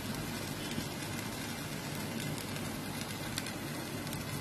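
Poha frying in a steel kadai over a gas flame: a steady sizzle with a few faint ticks.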